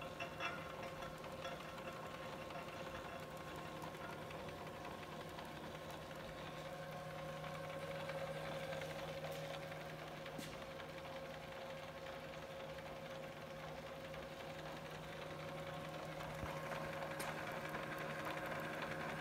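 South Bend Heavy 10 metal lathe running under power from its two-speed three-phase motor, spindle turning and feed gear train engaged: a steady hum with a constant whine, the gear train very quiet and smooth. A few light clicks sound in the first second.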